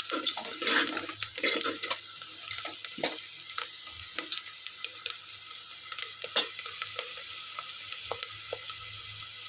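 Onion, dried red chillies, tempering seeds and curry leaves sizzling as they fry in hot oil, with a spoon stirring and scraping against the pan. The stirring is busiest in the first couple of seconds; after that the sizzle goes on steadily with occasional scrapes.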